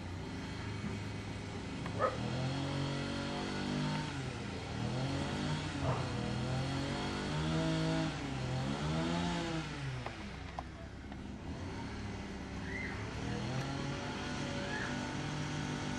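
Motor vehicle engines running nearby, rising and falling in pitch several times as they rev or pass. Two sharp clicks sound, about two seconds and about six seconds in.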